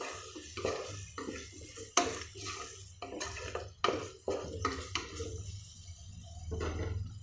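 A cooking spoon stirring and scraping against a metal pot, in a dozen or so irregular strokes and clinks, as mint and coriander leaves are sautéed into an onion-tomato masala.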